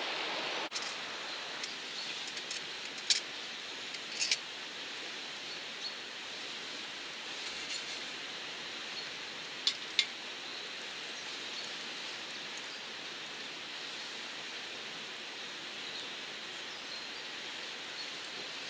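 Steady rushing of flowing stream water, with a handful of sharp clicks scattered through the first ten seconds.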